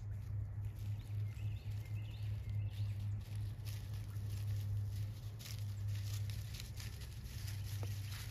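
Footsteps rustling and crackling through dry leaf litter, coming thick and fast from about three seconds in, over a steady low hum.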